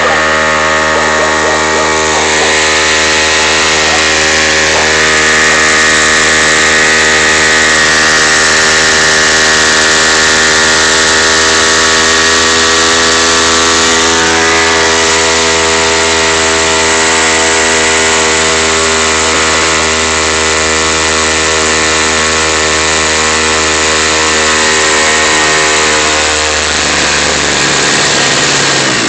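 Small outboard motor on a kayak running steadily under way, a loud, even engine note; near the end the note drops a little.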